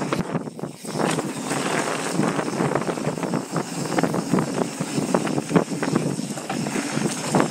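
Mountain bike descending a dirt trail at speed: tyres rolling and crunching over the dirt while the bike clatters and rattles over bumps, with wind buffeting the microphone. A short lull comes about half a second in.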